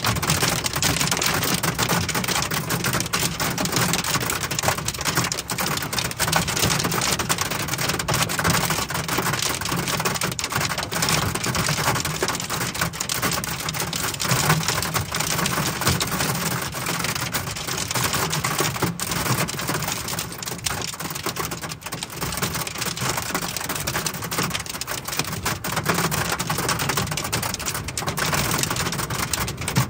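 Heavy thunderstorm rain pelting a car's roof and windshield, heard from inside the cabin: a dense, steady patter of hard hits.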